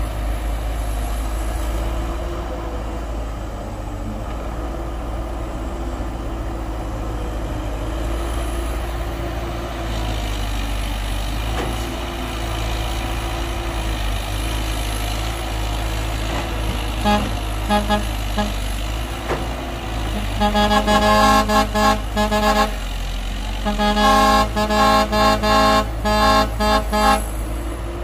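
A heavy diesel engine running steadily under a vehicle horn that sounds in repeated short honks. The honks start about two-thirds of the way in and come in quick strings near the end.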